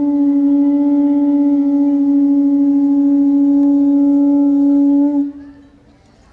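Conch shell trumpet (caracol) sounded in one long, steady blast that ends about five seconds in.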